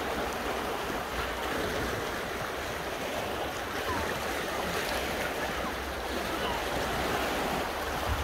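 Sea waves washing steadily against a rocky shore, a continuous surf noise.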